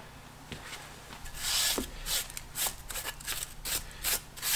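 Hand scrubbing or rubbing on a metal machine part: a longer hiss-like stroke about a second and a half in, then a run of short scraping strokes, roughly two a second.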